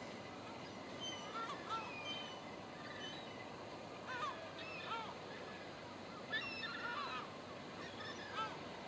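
Birds calling: short honking calls that rise and fall in pitch, coming in small groups several times, over a low steady background rumble.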